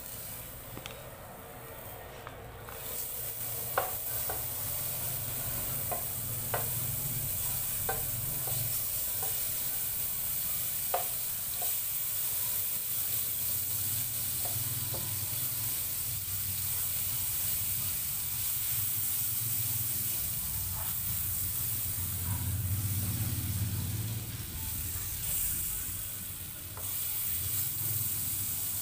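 Margarine sizzling as it melts in a nonstick frying pan, stirred with a wooden spatula that taps and scrapes against the pan. The steady sizzle starts a couple of seconds in, with a few sharp taps scattered through it.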